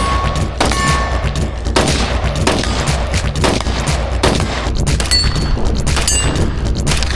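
Rapid, irregular gunshots from guns being fired in quick succession, several a second at times, over background music with a heavy steady bass.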